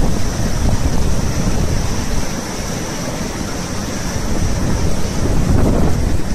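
Muddy floodwater rushing and churning through a street in a flash flood, a loud, steady rush of water.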